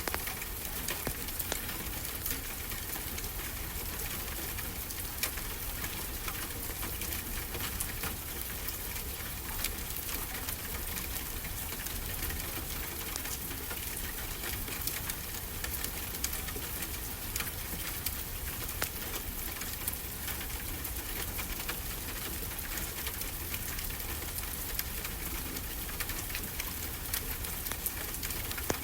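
Wood fire crackling, with frequent sharp pops and snaps, over a steady, even rush of ocean waves.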